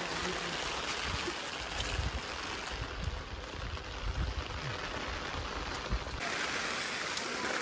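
Steady rain with water running on wet stone, heard as an even hiss, with low irregular rumbles underneath; the hiss turns brighter about six seconds in.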